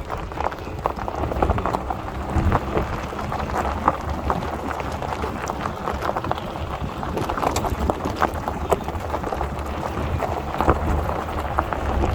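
A Jeep driving off-road: the engine runs steadily at low revs under an irregular crackle of clicks and crunches from the tyres on loose ground.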